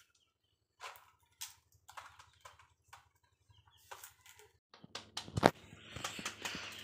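Fresh green leaves crinkling and rustling in the hands as leaf parcels are folded, in short separate bursts. Partway through comes one loud sharp knock, followed by denser, steadier rustling.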